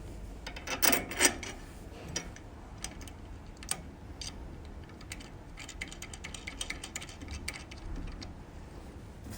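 A screw being fitted and tightened with a hand tool: small metallic clicks and ticks, with a louder clatter of handling about a second in and a quick run of ticks in the second half.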